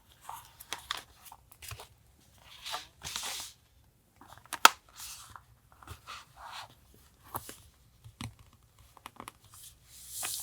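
Paper and stickers being handled: short rustles and tearing-like scrapes of paper, with a single sharp tap about four and a half seconds in.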